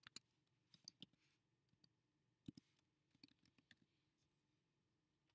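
Faint keystrokes on a computer keyboard as a password is typed: a dozen or so short, uneven taps that stop about four seconds in.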